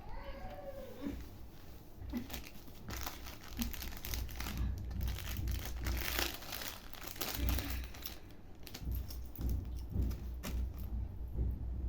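Parcel packaging being crinkled and torn open by hand, a dense crackling rustle that starts about two seconds in and runs on until near the end.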